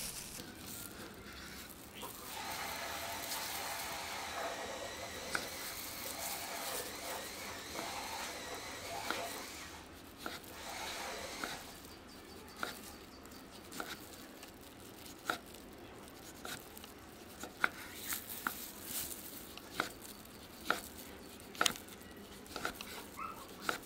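An orange being worked by hand on a wooden board with a rough tearing and crinkling sound, typical of peel coming away under plastic-gloved hands. After that a kitchen knife slices through the peeled orange, with a dozen or so sharp, irregular knocks as the blade hits the wooden cutting board.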